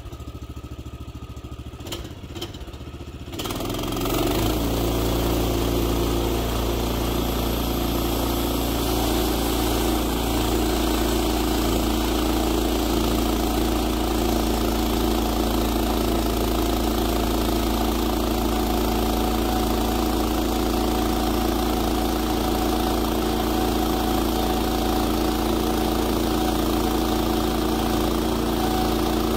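Gas engine of a Woodland Mills HM126 bandsaw mill (14 hp option) running at low speed, then throttled up about four seconds in and running steadily at full speed as the band blade is driven into the Douglas fir log.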